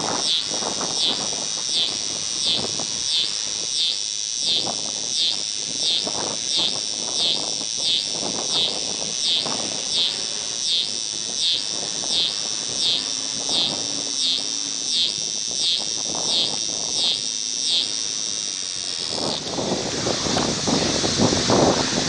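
Scissor grinder cicada (Neotibicen pruinosus) singing: a high, evenly pulsing song of about one and a half pulses a second. The pulsing stops about 19 seconds in, leaving a steady high hiss under a louder low rumble.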